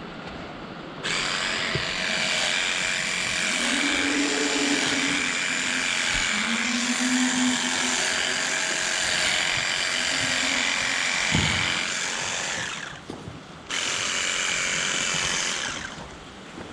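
Electric livestock clippers running as they cut the long hair of a cow's tail. The motor starts about a second in, cuts out for a moment near the end, then runs again for about two seconds before stopping.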